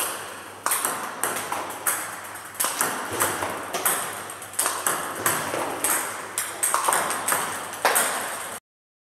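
Table tennis balls being served one after another, tomahawk serves with topspin: sharp clicks of the ball off the racket and bouncing on the table, a strong click about every two-thirds of a second with lighter bounces between, echoing in a hall. The sound cuts off abruptly near the end.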